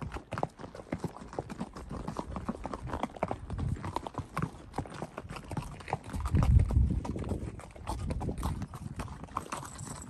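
Criollo horses' hooves clip-clopping in a dense, irregular run of hoofbeats, with a low rumble about six seconds in.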